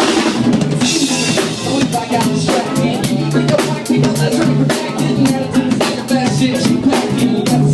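Live band playing an instrumental passage, driven by a drum kit beating out a steady kick-and-snare groove under sustained low bass notes.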